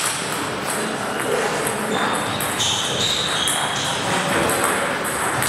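Steady sports-hall background noise in a lull between table tennis rallies, with a few light knocks of the plastic ball as it is tossed back. Short high squeaks come near the middle.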